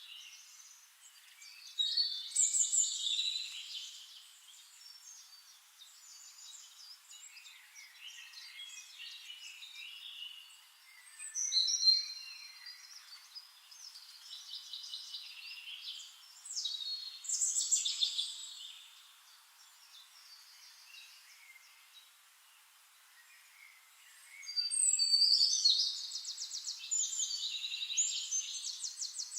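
Songbirds singing in short chirping phrases every few seconds, with gliding notes and a fast trill near the end.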